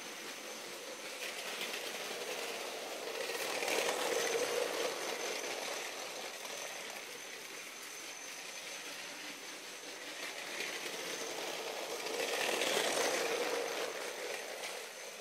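Lego toy train running on its plastic track: a steady whine with a light rattle of wheels and cars, swelling louder twice, about four seconds in and again near the end, as the train passes close.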